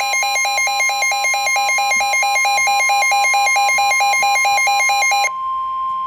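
Midland WR120 weather radio sounding its loud alert alarm for a severe thunderstorm warning: a warbling tone alternating between two pitches about four times a second, over a steady NOAA Weather Radio warning tone near 1 kHz. The warble cuts off about five seconds in, leaving the steady warning tone.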